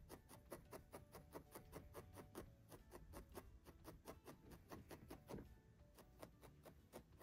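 Faint, quick pokes of a barbed felting needle stabbing through wool into a wool felting pad, at about five soft ticks a second while the tail is felted onto the cat's body.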